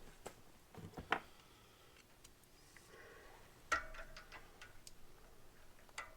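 A few light, separate metal clicks and taps of bolts and hand tools being handled while fitting bolts to the pressure washer pump, the sharpest about a second in and near four seconds.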